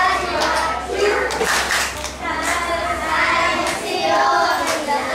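A group of children singing together, with hand clapping.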